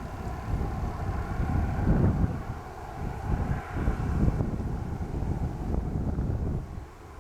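Airliner engine noise, a rumble with a faint steady whine, with wind buffeting the microphone in gusts; the level drops near the end.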